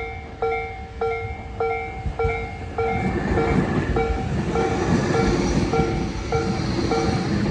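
Japanese level-crossing alarm bell ringing steadily, about one and a half dings a second. About three seconds in, a Tobu 80000-series electric train's running noise rises and drowns it out as the train comes into the station.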